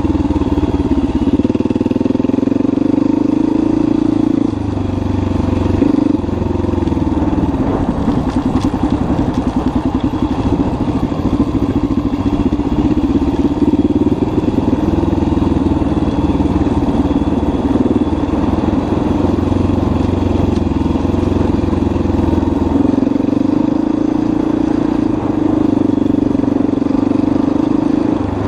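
Motorcycle engine running while the bike is ridden, its note stepping up and down several times as the throttle and speed change.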